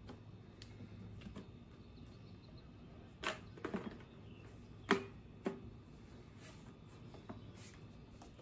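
Scattered light clicks and knocks of plastic parts being handled as soap is put into a pressure washer's foam cannon canister, the sharpest about three and five seconds in, over a faint low hum.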